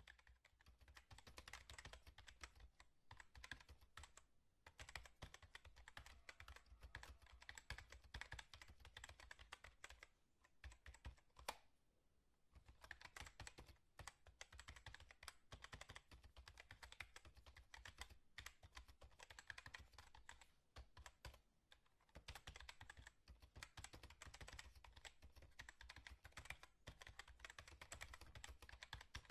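Quiet, rapid clattering of keys on a computer keyboard, typed fast and continuously, with two short pauses, about ten seconds in and again about twenty-one seconds in.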